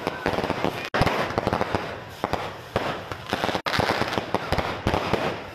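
Fireworks going off in a dense, rapid crackle of pops and bangs. The sound cuts out for an instant twice.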